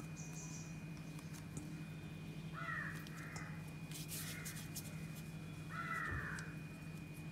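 A crow cawing a few times in the background, the loudest calls about three and six seconds in, over a low steady hum.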